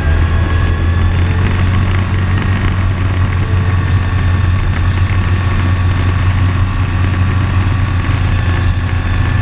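Off-road vehicle engine running steadily, a continuous low drone.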